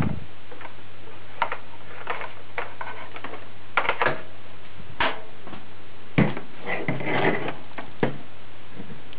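Irregular clicks, knocks and rattles of cables being handled and plugged into the connectors on the back of a desktop computer, with a brief clatter about 7 seconds in. A steady low hum runs underneath.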